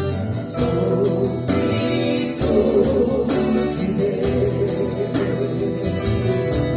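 A gospel vocal group singing with guitar accompaniment over a steady beat, performed live.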